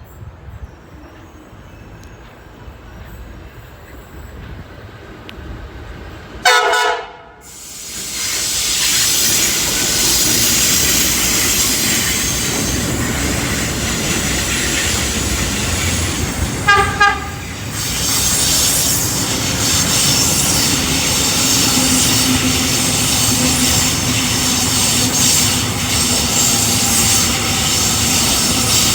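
Two train horns: one loud horn blast of about a second, roughly six seconds in, then a second horn giving two short blasts about seventeen seconds in. From about eight seconds on, a passing train keeps up a loud, steady running and rail noise.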